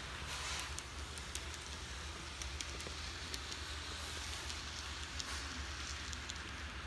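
N-scale model train running on layout track: a steady rushing hiss of wheels and motor, with many scattered light clicks and a low hum underneath.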